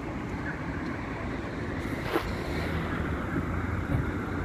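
Steady low rumble of city street and traffic noise picked up by a phone, with one short click about two seconds in.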